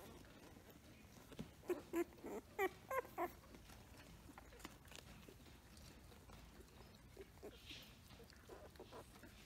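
Newborn Samoyed puppies squeaking and whimpering: a quick run of about half a dozen short, high cries, some sliding up in pitch, about one and a half seconds in, then a few fainter ones near the end.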